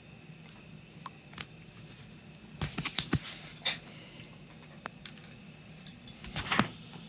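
Scattered small clicks and taps of hands handling a small wooden sleigh and the plastic LED battery pack being stuck underneath it, with a cluster of sharper knocks about three seconds in and again near the end.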